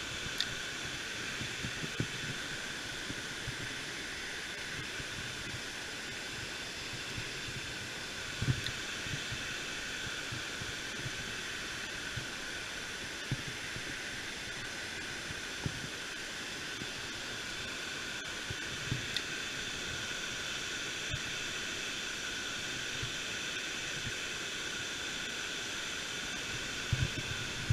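Steady rushing hiss of flowing river water, with a few soft knocks now and then.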